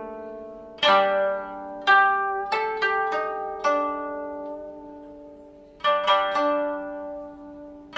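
Background music of plucked string notes, struck singly or a few together, each ringing and fading away, with a lull in the middle before a fresh group of notes.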